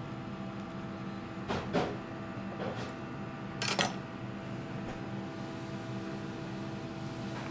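A few short knocks of a kitchen knife on a plastic cutting board as a piece of cooked anglerfish is sliced, the loudest pair a little before halfway. A steady hum runs underneath.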